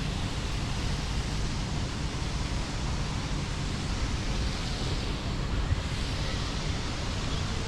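Wind blowing across the microphone outdoors: a steady rushing noise with low rumbling buffets.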